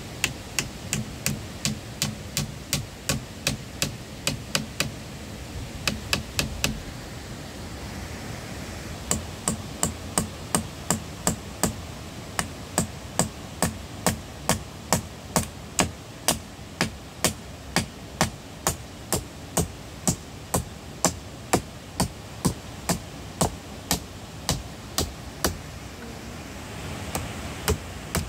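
A hand tool striking wood in a steady rhythm, a little over two sharp knocks a second. The runs break with a short pause about five seconds in and a longer gap around seven to nine seconds, then resume until near the end.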